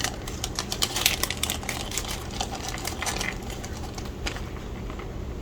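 Small, sharp clicks and taps from handling circuit-board parts on a workbench: a quick irregular run over the first three seconds, then one more click about four seconds in.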